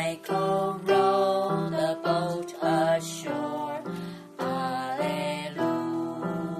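Electronic keyboard playing a simple melody in sustained notes, changing about every half second, over held chords.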